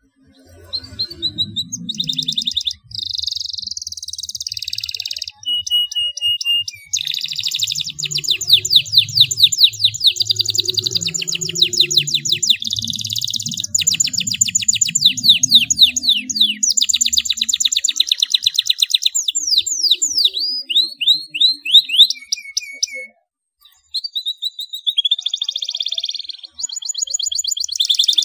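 Domestic canary singing in full song: long rolling trills and fast bursts of rapid repeated notes, broken by a few held whistle notes and a short pause about two-thirds of the way in.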